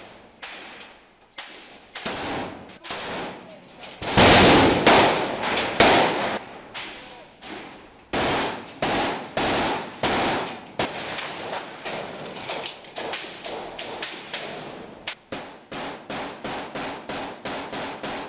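Rifle gunfire echoing inside a ruined building: single shots and bursts, with the loudest, densest firing a few seconds in and a steady run of about four shots a second near the end.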